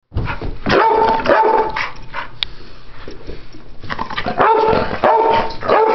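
Pit bulls barking in play, in loud bursts of short barks about a second in and again from about four and a half seconds, with a quieter stretch between.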